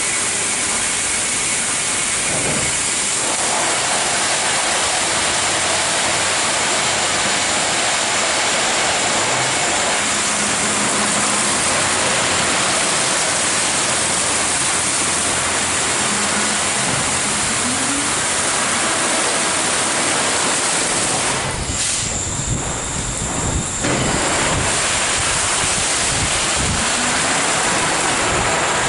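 Christ Genius Vitesse rollover car wash in its brush wash: rotating brushes washing a car with water spraying, a loud steady rushing noise with machine hum. A little over two-thirds in, the hiss dips for about two seconds and a few low knocks sound.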